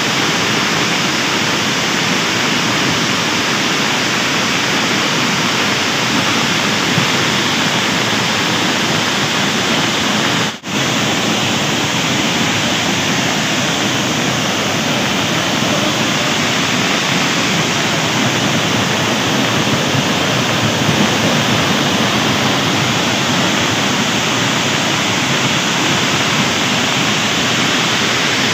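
Steady rushing of a rain-swollen hill stream in spate, muddy floodwater pouring fast over rocks and down the slope. It cuts out for an instant about ten and a half seconds in.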